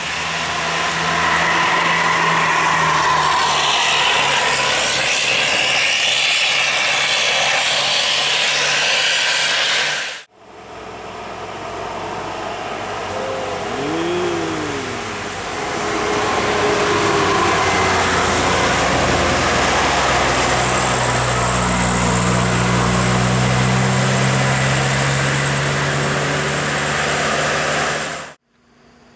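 Heavy road traffic, tour bus engines and tyre noise, loud and steady. It cuts off abruptly about ten seconds in and again near the end, and there is a brief rising-then-falling pitch glide in the middle.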